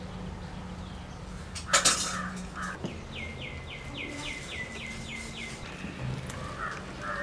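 Birds calling: a harsh call about two seconds in and again near the end, and in between a rapid run of about ten falling high notes, roughly four a second.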